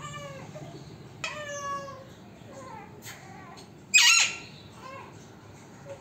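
Alexandrine parakeet calling: a few short calls that fall in pitch, then one loud screech about four seconds in.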